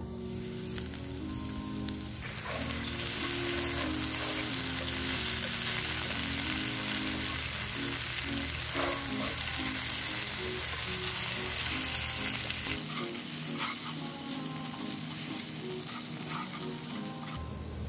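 Diced potatoes sizzling as they fry in a cast iron pot, with a wooden spatula scraping and turning them; the sizzle grows louder about two seconds in.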